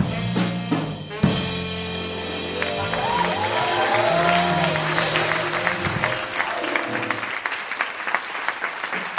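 A jazz combo of saxophone, piano and drums ends its tune on a held final chord, closed by a drum hit about a second in. Audience applause rises over the fading chord and carries on, with a voice calling out in the middle.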